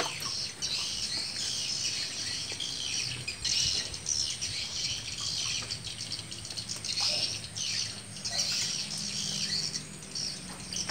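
Night birds calling in a dense chorus of quick, high chirps and chatters, in clusters that swell and fade every second or two.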